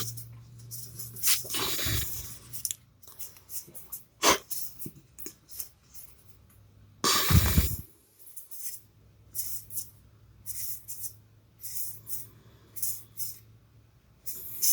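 Trading cards being handled and flicked past one another: a string of short, papery swishes and snaps at irregular intervals, one louder about seven seconds in, over a faint steady electrical hum.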